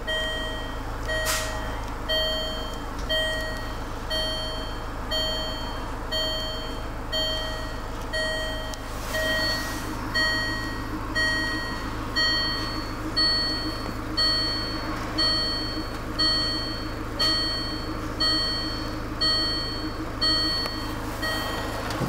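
Range Rover Evoque's dashboard warning chime repeating about once a second, over the low steady hum of the engine idling.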